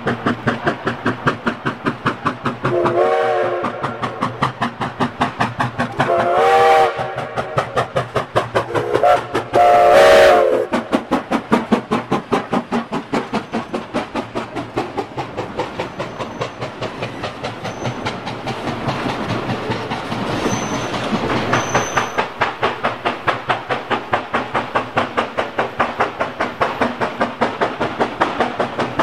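New York, Susquehanna & Western No. 142 steam locomotive passing with passenger cars, its exhaust chuffing in a fast, steady rhythm. Its chime whistle sounds four blasts in the first third, long, long, short, long: the grade-crossing signal.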